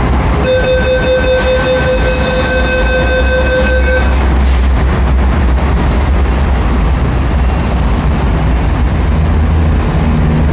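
MTR metro train at the platform, its low rumble running steadily. A steady electronic beep sounds from about half a second to about four seconds in. A low hum from the train comes in near the end.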